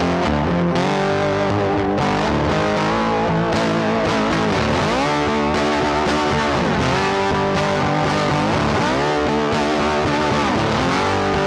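Background music led by a distorted electric guitar, with notes bending in pitch.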